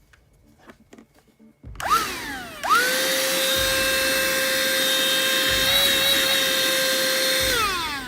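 CLEANmaxx cordless cyclone vacuum cleaner's motor: switched on and off briefly, so its whine rises and falls, then switched on again and run with a steady high whine for about five seconds. Near the end it is switched off and winds down with falling pitch.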